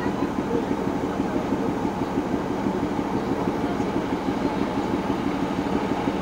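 Darjeeling Himalayan Railway narrow-gauge diesel locomotive's engine running steadily with a fast, even throb.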